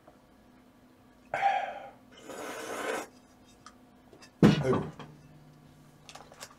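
Mouth and breath sounds of someone eating: a short breathy burst, a longer airy blow, then a sudden cough-like throat sound about four and a half seconds in, with a few small clicks near the end.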